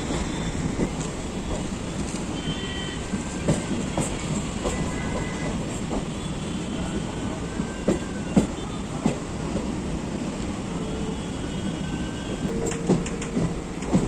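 Electric suburban train running on its track: a steady rumble with sharp, irregularly spaced clicks of the wheels over rail joints and points.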